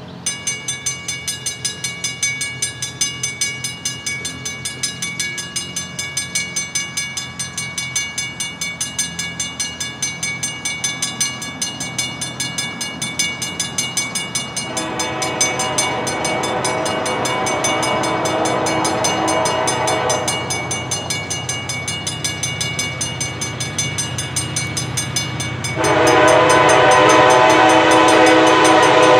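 Grade-crossing warning bell ringing in a rapid steady rhythm as the crossing activates. A CSX SD40-3 diesel locomotive's air horn sounds a long blast about halfway through, then a second, louder blast near the end as the train nears the crossing.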